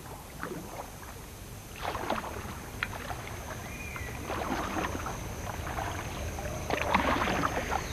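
Water splashing and sloshing around a small boat travelling on a river, in irregular surges about every two to three seconds, over a steady low rumble.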